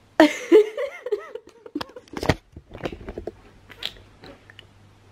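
A woman's breathless, squealing laughter in the first second and a half, followed by a few knocks and clicks from handling the camera, the loudest about two seconds in.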